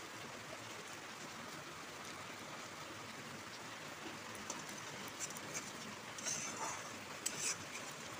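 Masala paste sizzling steadily in hot oil in a kadai as it is fried down until the oil separates. From about four seconds in, a metal spatula scrapes and stirs against the pan a few times.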